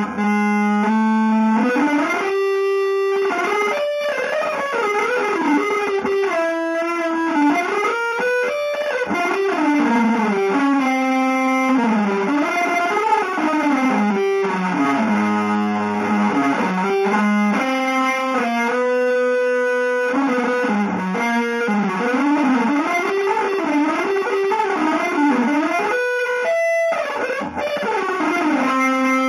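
Unaccompanied electric guitar improvising in an avant-garde jazz style: fast single-note runs winding up and down, broken by held, ringing notes.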